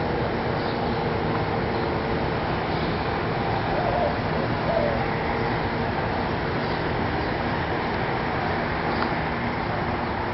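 A Kawasaki KZ1000 motorcycle's engine running steadily at an even level, with a few short bird chirps about four and five seconds in.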